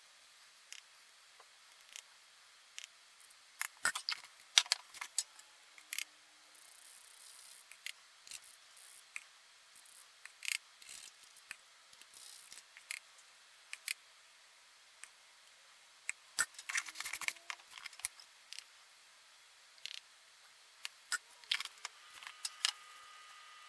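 Metal spoon clicking and scraping against a plastic dye jar and the bound shirt as powdered dye is scooped out and tapped onto the fabric: scattered short clicks, a few coming in quick clusters.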